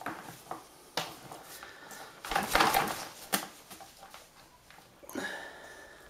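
Blue-and-gold macaw bathing in a bucket of water, splashing and flapping its wet wings in a few bursts, the longest and loudest about halfway through.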